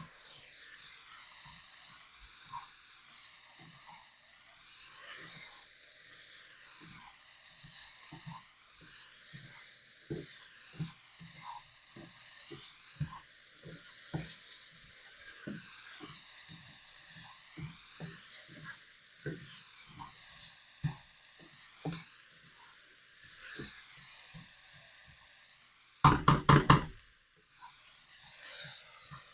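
Diced zucchini and red bell pepper sizzling in oil in a skillet, a soft steady hiss with many small crackles and pops. Near the end comes a brief, louder burst of rapid knocking.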